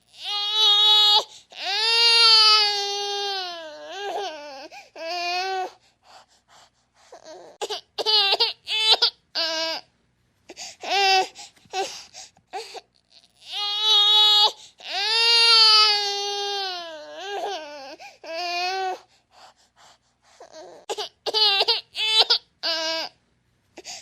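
Infant crying: long, high-pitched wails broken by short gasping cries and brief pauses. The same sequence of cries repeats identically about halfway through, as in a looped recording.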